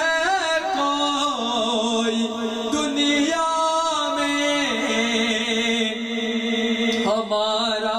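A man singing an Urdu naat, a devotional poem in praise of the Prophet, into a microphone. He holds long notes and ornaments them with wavering turns of pitch.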